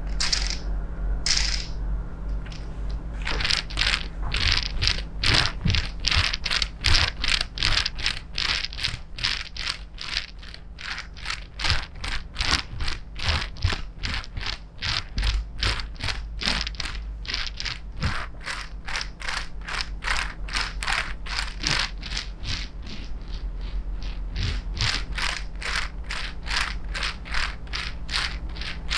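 Plastic roller-ball rope massager rolled back and forth over the shoulders and neck: its spiky plastic rollers give a quick clicking rattle. The rattle comes in short even strokes, about two to three a second, starting a few seconds in.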